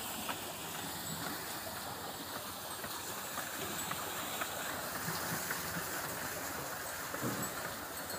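Bullock-driven Persian wheel turning over a well: a steady rush of water spilling from its bucket chain into the trough, with light clanks and rattles from the chain and gearing.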